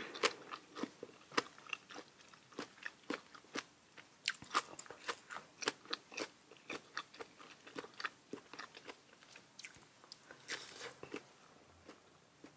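A person chewing crunchy papaya salad up close to the microphone: soft, irregular crunches and mouth clicks, a few a second, bunched more densely about four seconds in and again near the end.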